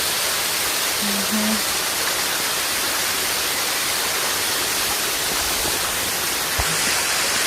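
Karekare Falls waterfall, falling water rushing with a steady, even noise.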